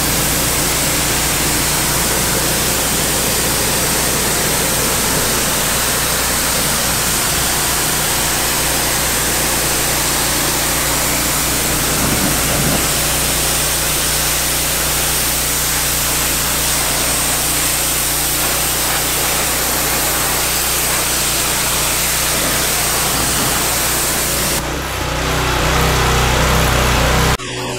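Pressure washer spraying a truck camper shell: a steady hiss of the jet over a low steady hum, cutting off suddenly near the end.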